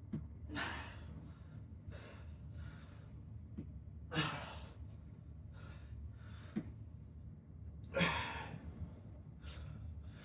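A man breathing hard after exertion, with loud, breathy exhalations every two to four seconds, the strongest about four and eight seconds in, over a steady low hum.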